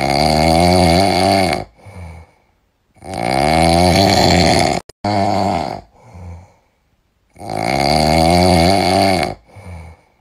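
Loud snoring: three long, drawn-out snores, each followed by a short, softer breath, with silent pauses between. This is the sound of someone fast asleep.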